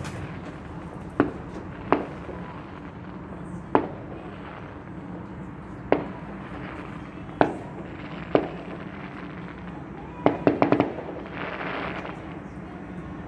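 Fireworks going off: six single sharp bangs a second or two apart, then a quick crackling run of pops about ten and a half seconds in.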